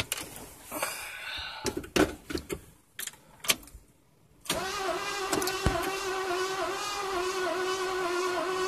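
A few clicks and knocks, then about halfway in the starter motor of a 1979 Ford F-150 cranks the engine for about five seconds with a steady whir and a slow, regular pulse, without the engine catching. The failed start points to a weak battery that needs replacing.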